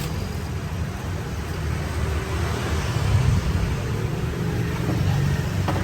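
Steady low rumble of street traffic, swelling briefly midway, with a couple of short sharp knocks near the end.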